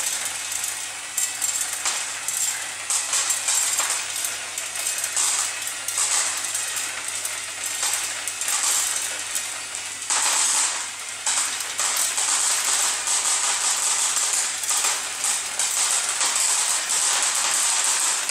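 Small model potatoes from a tipping dumper trailer rattling and clattering continuously as they pour onto the conveyor belts of a Meccano scale-model potato-store line. Under the clatter runs a faint low steady hum.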